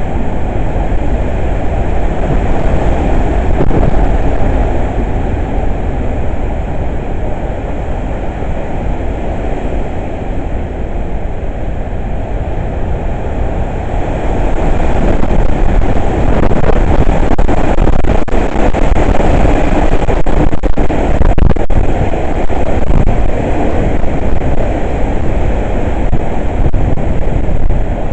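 Hurricane wind gusting hard against the microphone, a continuous heavy rumble that grows louder about halfway through and stays up for about ten seconds.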